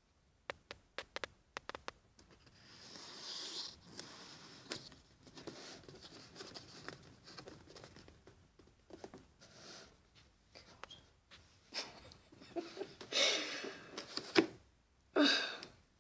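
Quiet handling sounds: scattered small clicks and rustles from the phone and the plastic container. Near the end come a few louder breathy noises.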